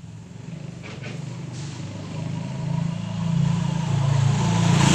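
A motor vehicle's engine running as it approaches, growing steadily louder and loudest near the end.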